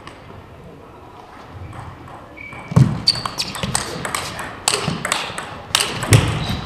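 Table tennis rally: the ball clicks sharply off paddles and table in quick succession, starting about three seconds in. Heavy thuds of the players' footwork on the hall floor come with it.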